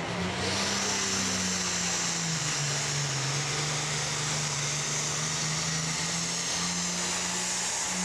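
Diesel engine of a pulling tractor at full power under heavy load, dragging a weight sled, with thick black smoke from its stack. The engine holds a steady high pitch that dips slightly partway through and climbs again near the end, with a loud high hiss throughout.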